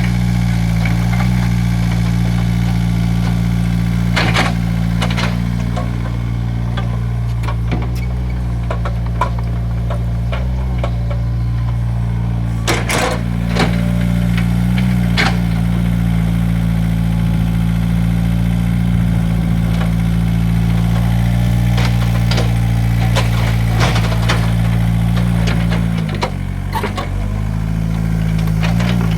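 Hydraulic excavator's diesel engine running steadily, with scattered knocks and clanks from the machine at work. The engine note dips briefly about three quarters of the way through, then picks up again.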